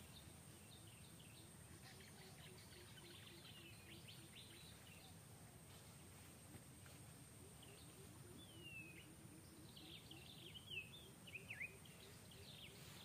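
Faint background with birds chirping: two bouts of quick high chirps and short falling whistles, the second bout near the end a little louder. A faint steady high whine runs underneath.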